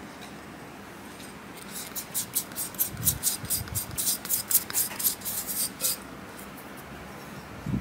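Light, rapid ticking, about four to five clicks a second for several seconds, as dry ingredients are tapped and shaken out of a small glass dish into a glass mixing bowl. A soft thud comes near the middle.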